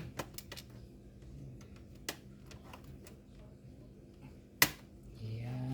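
Sharp plastic clicks and snaps from a Dell Latitude 3580 laptop's base cover being worked loose, with a loud snap about two seconds in and another near the end. A short hummed voice sound comes in just before the end.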